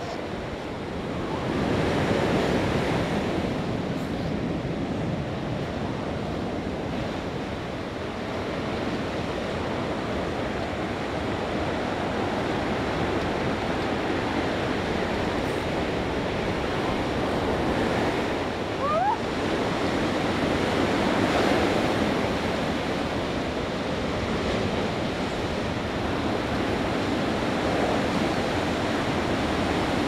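Ocean surf breaking and washing up the beach, a steady rushing that swells and eases every several seconds.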